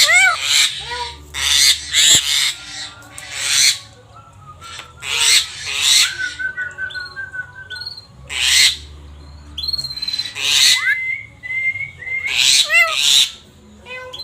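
Javan myna (jalak kebo) calling again and again: loud, harsh, raspy calls every second or two, with a few short whistled notes that slide upward in between.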